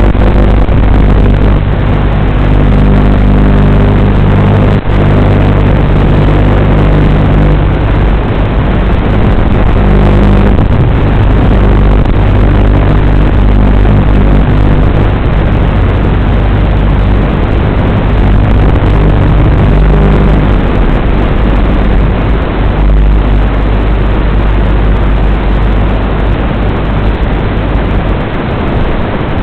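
A WLToys 12418 RC car's electric motor and drivetrain running continuously while driving, loud. The low hum changes pitch now and then with the throttle, over a rushing noise.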